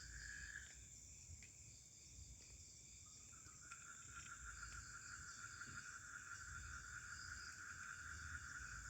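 Faint chorus of forest insects: several steady, high trills. A lower one stops shortly after the start and comes back about three seconds in.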